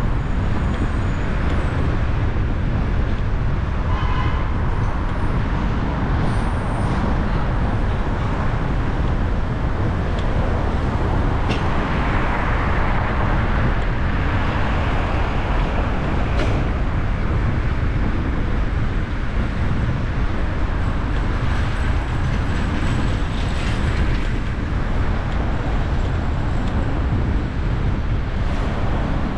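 Steady city traffic and road rumble heard from a car driving through Manhattan streets, with a short horn beep about four seconds in and a hissing swell of passing traffic near the middle.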